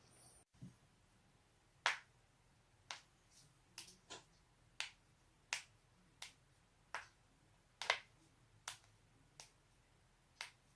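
A person's joints cracking: about a dozen short, sharp pops, roughly one every three-quarters of a second, the loudest about eight seconds in.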